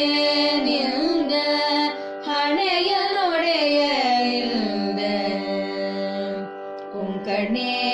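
Female voice singing a slow, ornamented Carnatic line in raga Bindumalini over a steady drone; the sung pitch sweeps around and then glides down into a long held low note, and a new phrase begins near the end.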